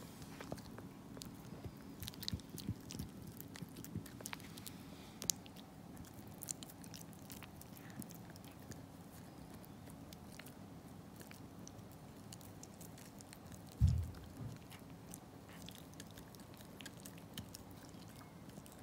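Small dog gnawing and chewing on a chew, with irregular clicks and crunches. A single dull low thump about fourteen seconds in is the loudest sound.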